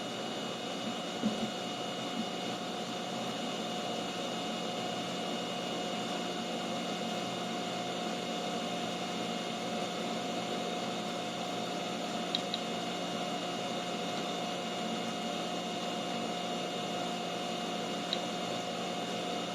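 Steady electric fan hum with a faint high-pitched whine running under it, broken by a few faint light clicks.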